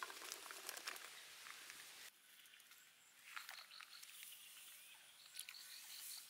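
Faint hissing and light crackling from a wok of water heating over a wood fire, with scattered small clicks as ingredients are laid into the pan. The hiss thins out abruptly about two seconds in.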